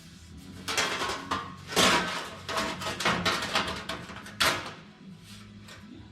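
Hands working a workpiece on the bench: an irregular string of knocks, clatter and short scrapes as the piece is moved, positioned and marked, over a steady low hum.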